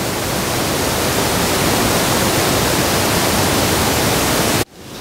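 Water pouring over a stepped stone weir: a steady rush that builds slightly at first and cuts off abruptly near the end.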